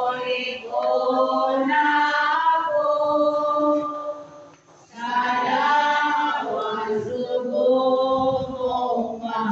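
Voices singing a hymn in long held notes, in two phrases with a short break about four and a half seconds in.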